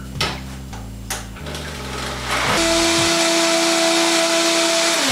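Countertop blender switched on about halfway through, its motor running loud and steady at high speed as it blends coconut milk, dates and durian into a drink. Two short knocks come first as the blender is handled.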